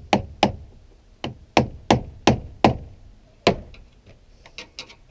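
Hammer blows on a screwdriver driven against a badly corroded car battery terminal clamp, to work the rusted, very tough clamp loose: about eight sharp metallic knocks in three and a half seconds, then a few lighter clicks and taps near the end.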